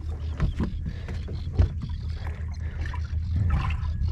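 Small boat at sea: a steady low motor hum with water splashing and lapping, the splashes coming thicker near the end.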